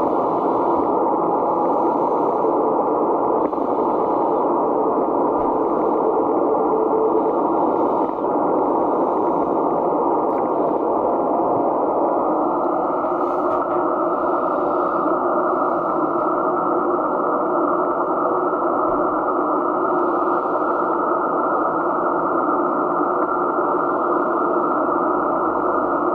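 Receiver audio from an ICOM IC-7600 transceiver tuned to 80 m CW: steady band noise and static squeezed into a narrow receive filter, with a faint steady tone appearing about halfway through.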